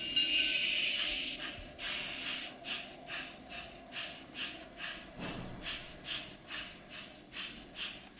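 Model class 64 steam locomotive's sound module, a loud steam hiss that fades after about a second and a half, then steady exhaust chuffs about three a second as the locomotive runs, played through the model's small loudspeaker.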